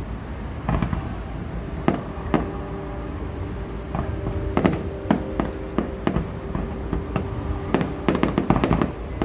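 Fireworks display: aerial shells bursting in sharp bangs, a few at a time at first, then coming thick and fast near the end, over a steady drone.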